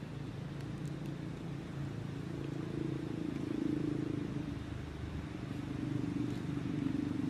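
A steady low engine drone, swelling slightly twice.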